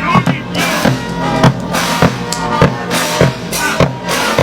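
Music with a steady drum-kit beat, a heavy stroke about every 0.6 seconds, over sustained instrument tones.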